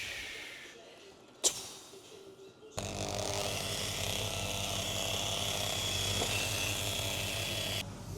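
Vehicle lift being lowered. A hiss fades over the first second, then a single sharp click. About three seconds in, a steady hum with hiss starts and runs for about five seconds before cutting off suddenly.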